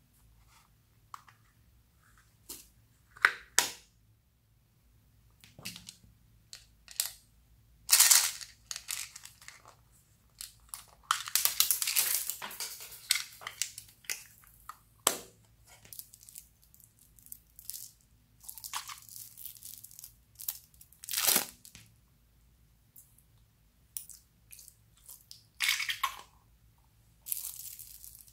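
Hard plastic toy capsules being handled and opened: scattered clicks and snaps, with crinkling, rustling stretches, the longest starting about eleven seconds in and lasting about three seconds.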